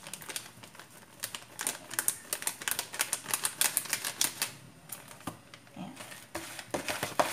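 Ground pepper being shaken from a shaker over raw fish: a fast run of small sharp rattling clicks for a few seconds, then softer scattered clicks and handling sounds.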